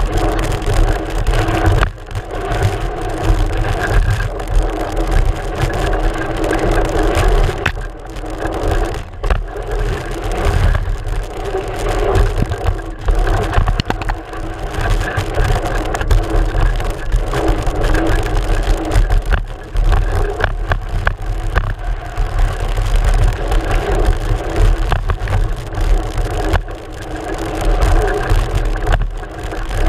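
Mountain bike riding a dirt trail, heard from a GoPro mounted on the front fork: a steady loud rush of tyre and wind noise with frequent knocks and rattles over bumps.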